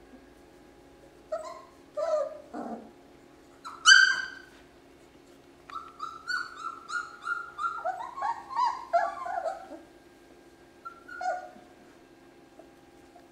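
German shorthaired pointer puppies yipping and whimpering as they play. There is a loud high yelp about four seconds in, then a rapid string of short yips in the middle.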